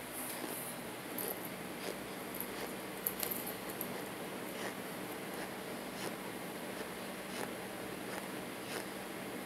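Plastic spoon scraping and scooping dry powder in a plastic tub, with scattered soft clicks and mouth sounds of eating the powder, over a steady hiss and faint hum.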